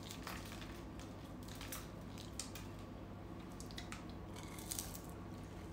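Faint, scattered crackles of sugar-coated fried dough twists (nom khnhey) being broken apart by hand, over a steady low hum.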